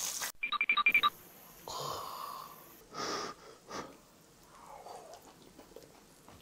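Kitchen scissors snipping grilled pork belly, about six quick metallic clicks in under a second, then a brief sizzle from the griddle and a few breathy puffs and chewing as hot meat is eaten.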